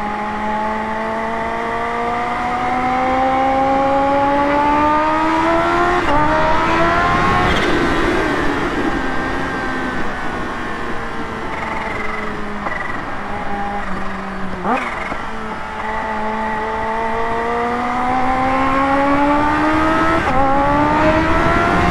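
Kawasaki Ninja H2's supercharged inline-four engine under way: its note climbs slowly as the bike pulls in gear, breaking off at gear changes about six, fifteen and twenty seconds in.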